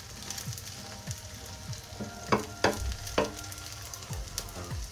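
Beaten eggs frying in a shallow layer of hot oil in a pan, with a steady sizzle and a few sharp pops about halfway through.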